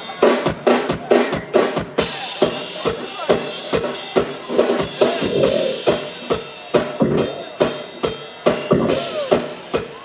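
Live drum kit playing a steady beat of kick drum and snare hits, amplified through the stage's microphones.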